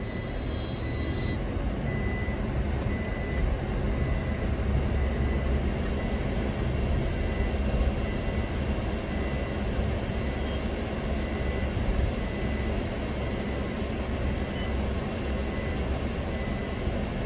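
A car's engine and tyres rumble steadily, heard from inside the cabin while driving slowly. A faint high tone keeps breaking on and off over the rumble.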